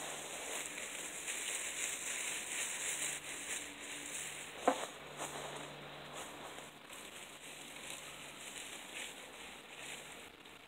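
Rustling and crinkling of fabric and dry leaves as a stuffed scarecrow is handled and adjusted, busier in the first half and quieter after. A single short sharp sound stands out about halfway through.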